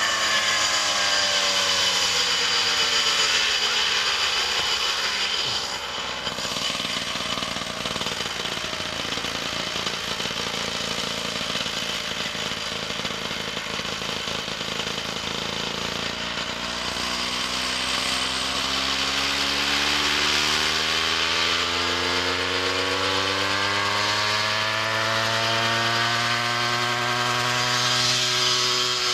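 The 100 cc engine and rotors of a homemade coaxial radio-controlled helicopter running in a hover. The engine pitch slides down over the first several seconds, holds lower for about ten seconds, then climbs steadily again through the second half as the machine lifts higher.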